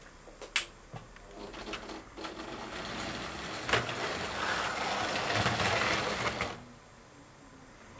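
00 gauge model train running past over the track and points: a small electric motor's rattle with wheels clicking over rail joints. A few sharp clicks come first, then the sound builds, is loudest as the train passes close and drops off after about six and a half seconds.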